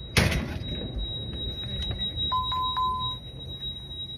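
A short clatter just after the start, then a steady electronic beep lasting about a second, over background room noise with a faint steady high-pitched whine.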